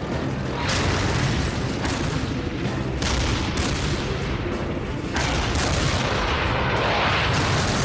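Battle sound effects: tank cannon shots and shell explosions, about half a dozen sudden blasts a second or two apart, each trailing off slowly over a low rumble and background music.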